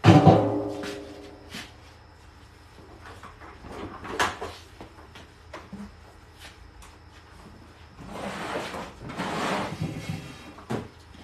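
Things being handled and moved in a garage: a loud metallic clang that rings for about a second, then scattered knocks and clicks, and a long scraping slide about eight seconds in.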